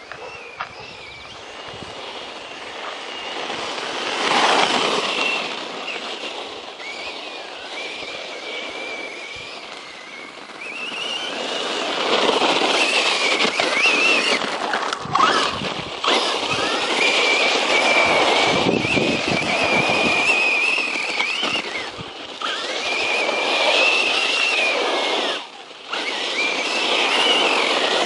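A 1/10-scale RC truck's brushless electric motor whining through several bursts of driving, its pitch rising and falling as it speeds up and slows, over a rushing noise of tyres and drivetrain.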